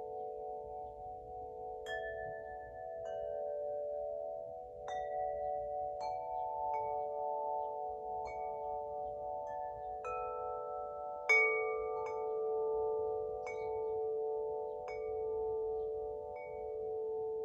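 Spring wind chime, a tuned set of chimes for the wood element, struck every second or two, its tones ringing on and overlapping, with one strike a little past the middle louder than the rest.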